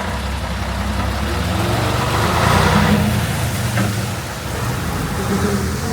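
Motor vehicle passing on a rain-soaked, flooded road: engine hum under a hiss of tyres and spray that swells and peaks about two and a half seconds in.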